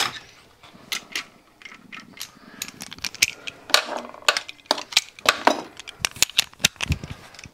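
Steel sockets from a socket set clinking against each other and the metal bench as they are handled and sorted, a run of irregular sharp metallic clicks.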